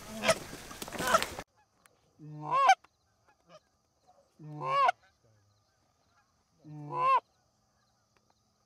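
Three goose honks about two seconds apart, each a short low note that breaks upward into a loud high honk, the two-part call of a Canada goose. Before them, rustling field noise cuts off suddenly.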